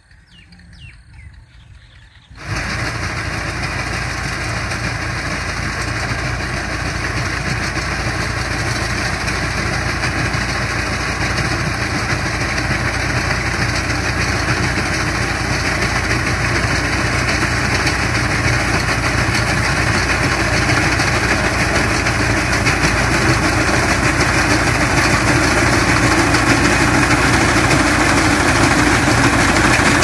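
Tractor engine running steadily while driving a front-mounted wheat reaper through standing wheat. It starts suddenly about two seconds in and grows slowly louder as the tractor comes closer.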